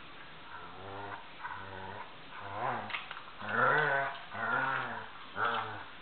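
Dogs play-growling in a tug-of-war over a plush toy duck: a series of about six low, rumbling growls that swell and fade, the loudest coming a little past halfway.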